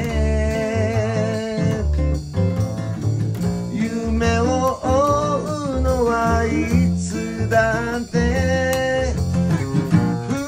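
A blues song played on a strummed acoustic guitar, upright bass and a small Sonor Jungle drum kit, with a man's voice singing along.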